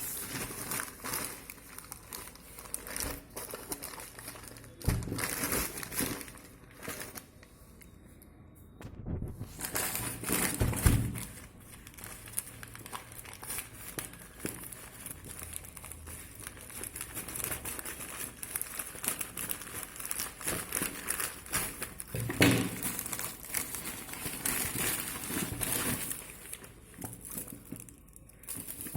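Packaging crinkling and rustling in irregular bursts as a new smartphone's box is opened and handled, with a short lull about eight seconds in and a few louder bumps.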